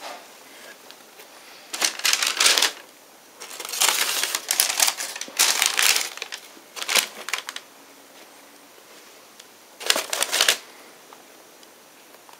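Tissue paper rustling and crinkling in a shoebox as it is pulled back and a pair of cleats is lifted out, in four loud bursts with quiet gaps between.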